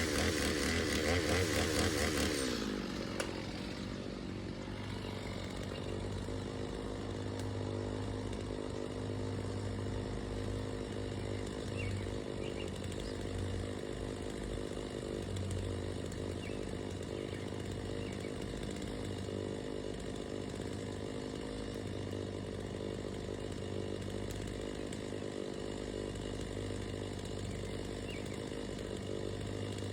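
Chainsaw running at high speed with its pitch rising and falling for the first couple of seconds, then dropping to a steadier, lower and quieter running tone that holds for the rest.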